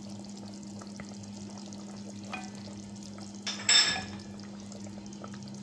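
Chicken curry simmering in a metal pot with a faint steady crackle, while a silicone spatula stirs it, with a brief scrape against the pot at about two and a half seconds and a louder one at about three and a half seconds. A steady low hum runs underneath.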